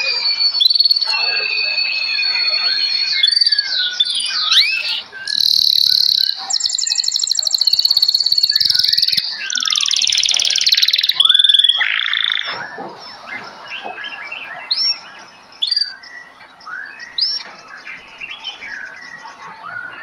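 Several caged songbirds calling and singing together: varied whistled notes, glides and chirps, with a fast, buzzy pulsing trill in the middle few seconds. The calls thin out to scattered, quieter chirps in the second half.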